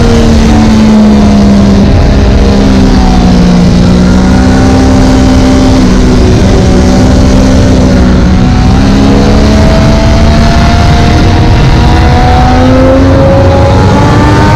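2017 Triumph Daytona 675R's 675 cc inline-three engine running hard on track, loud, with heavy wind rush over the microphone. Engine pitch falls over the first few seconds, holds fairly level with a couple of small steps mid-way, then climbs steadily near the end as the bike accelerates.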